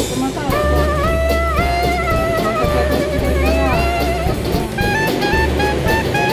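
Background music: a sliding, bending melody over a steady bass line and a regular drum beat.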